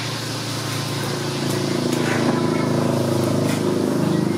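An engine running steadily with an even hum, growing louder about a second and a half in.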